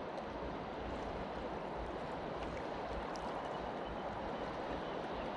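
A large river running high and fast after rain, its current rushing steadily past.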